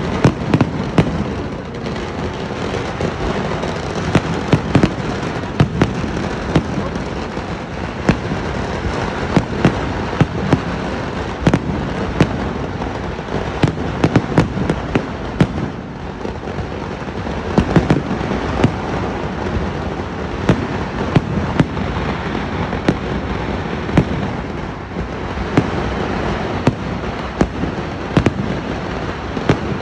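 Kerala temple-festival fireworks (vedikkettu) going off in a dense barrage: a continuous rumble of explosions with frequent sharper bangs, shells bursting in the air overhead.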